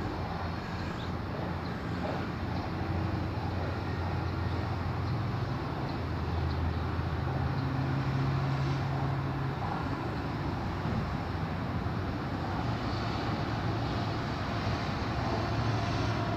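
Steady background noise with a low, engine-like hum that shifts in pitch a few times.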